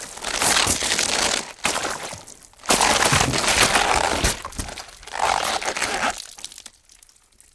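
Library Foley gore sound effect of bones breaking and wet guts splashing: a string of loud, rough bursts, one after another, that thin out and fade away near the end.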